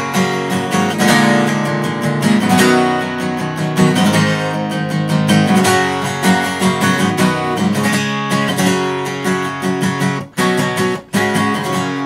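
Acoustic guitar strummed in a steady rhythm as a song's instrumental introduction, cutting out briefly twice near the end.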